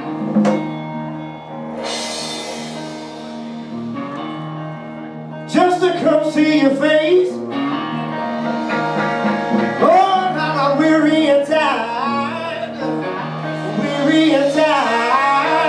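Live blues band playing with electric guitars, bass and drums. About five and a half seconds in, a louder lead melody with bending, sliding notes comes in over the band.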